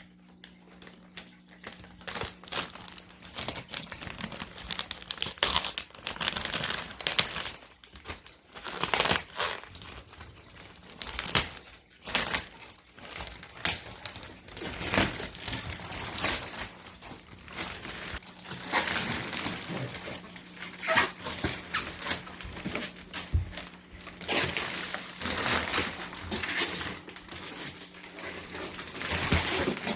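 Thick plastic wrapping on a compressed memory foam mattress crinkling and tearing in irregular bursts as it is slit open with a cutting tool and pulled away. A faint steady low hum runs underneath.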